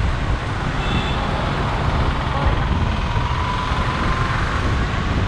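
Steady road and traffic noise heard from a car driving among trucks and cars, with a heavy low rumble. A faint short tone sounds about a second in, and a faint drawn-out tone runs through the middle.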